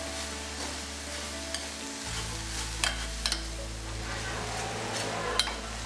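Steel spoon stirring cooked red amaranth leaves in a stainless-steel pot, with a soft sizzle and a few sharp clicks of the spoon against the pot's side.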